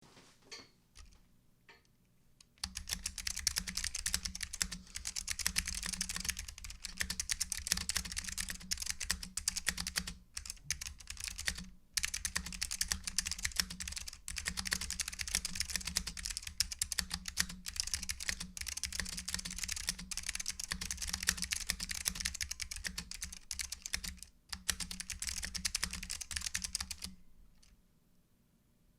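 Fast continuous typing on a mechanical keyboard with clicky Alps SKCM Blue switches, mounted on a leaf-spring aluminium plate and fitted with PBT keycaps. A few separate keystrokes come first, then steady rapid typing with brief pauses, ending about two seconds before the close.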